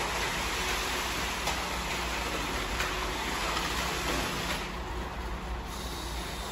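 Steady machinery running: a constant hiss over a faint low hum, with no separate knocks or strikes. The hiss thins briefly about five seconds in.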